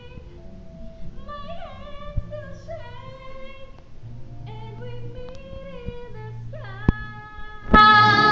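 Music with a woman singing a slow melody in long held notes; the music turns suddenly louder and fuller near the end.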